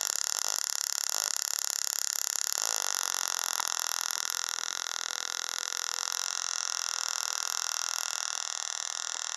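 Small battery-powered tabletop spark-gap Tesla coil running, its spark gap firing in a fast raspy buzz over a steady high hiss. About three seconds in the buzz thins out, leaving mostly the hiss.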